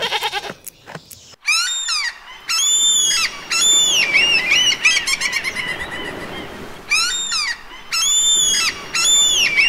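A goat bleats briefly, then a flock of gulls calls for the rest of the time: loud squawking cries rising and falling in pitch, coming in repeated bouts from several birds at once.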